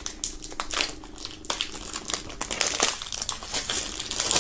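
Plastic shrink-wrap film crinkling and crackling as it is peeled off a CD jewel case. It comes as a run of irregular crackles, with a longer, louder rustle near the end.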